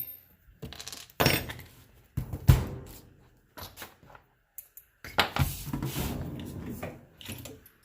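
Knocks and handling noise from an Arrma Talion RC truck as its wheels are taken off: a sharp knock, then a heavier thump about two and a half seconds in, and a longer stretch of scraping and rattling near the end.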